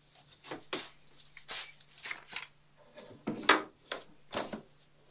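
Clamps being set and tightened on a plywood plank against a wooden boat mold: a series of short clicks and knocks, the loudest about three and a half seconds in.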